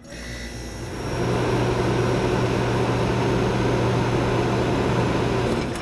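Rocket-launch sound effect: a steady rushing engine noise over a low hum, building over the first second and dropping away near the end.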